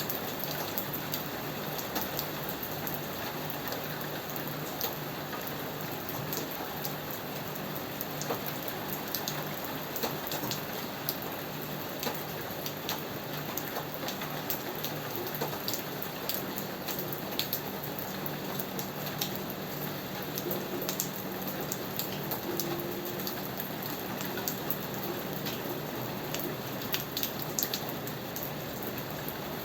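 Steady rain falling, with frequent sharp ticks of individual drops close by.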